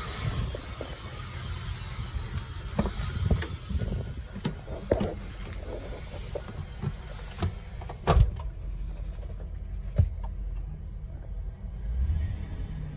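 Van engine idling steadily under clunks and knocks from handling around the cab, with a loud thump about eight seconds in and another about ten seconds in.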